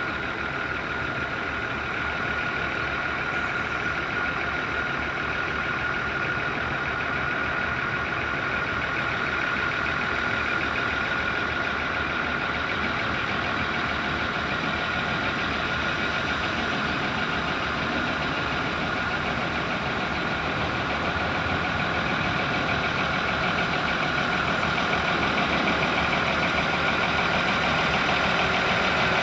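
Diesel railway engine running steadily at idle, with a constant high thin whine over the engine note; it grows slightly louder toward the end.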